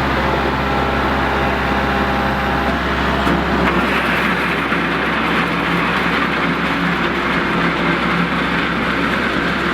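Kubota MX 5400 tractor's diesel engine running steadily, growing harsher about four seconds in.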